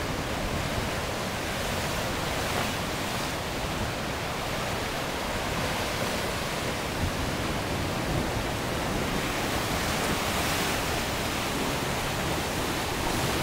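Ocean surf washing against the shore: a steady rushing that swells and eases slightly.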